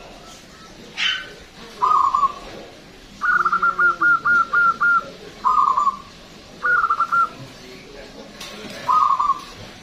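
Local Indonesian zebra dove (perkutut) singing in its cage: five phrases of quick, loud cooing notes, one of them a long run of about eight rapid notes in the middle.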